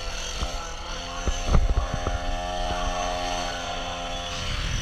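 Motorised skateboard running along a road: a steady motor drone with low rumble, and a few sharp knocks in the first two seconds as the board rides over the road.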